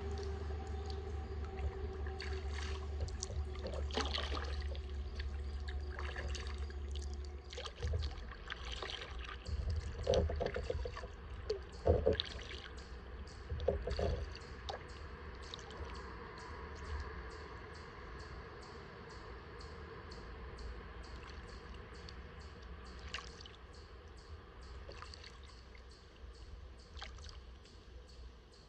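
Kayak paddle strokes in calm river water: the blades dip in, with splashes, trickles and drips running off them, loudest in a cluster of splashes between about eight and fifteen seconds in. A low rumble lies under the first several seconds.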